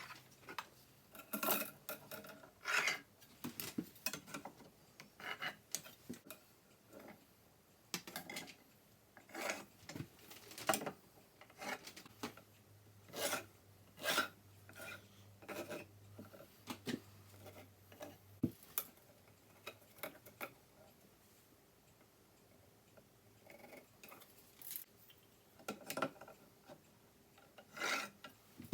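Oak boards and tools handled on a workbench: irregular knocks and clicks mixed with scraping and rubbing.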